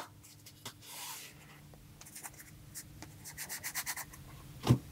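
Pokémon trading cards rubbing and sliding against each other as they are handled and flipped through, quiet, with a sharp tap right at the start and a run of quick light flicks about three seconds in.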